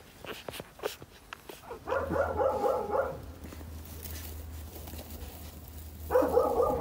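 Newborn puppies whimpering: one cry about two seconds in lasting about a second, and another starting near the end, with soft clicks before the first cry.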